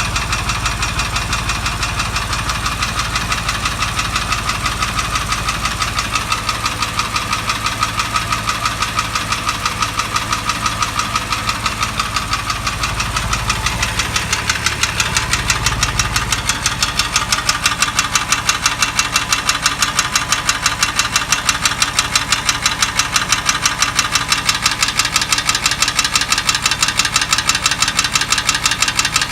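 Porsche 911 (997) water-cooled flat-six engine running with a regular, rapid knocking, the abnormal engine noise being examined. About fifteen seconds in, the low rumble drops away and the knock stands out sharper and louder.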